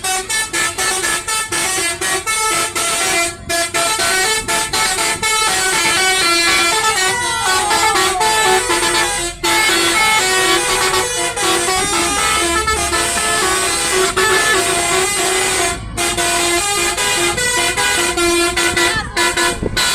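Basuri 'telolet' musical bus horns playing melodies, a rapid run of stepped horn notes changing pitch like a tune, with brief breaks about three, nine and sixteen seconds in.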